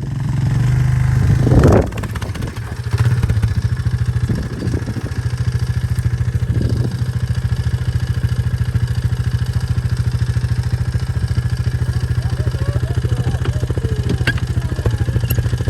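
A vehicle engine running steadily at close range with a fast, even beat, a loud knock about two seconds in.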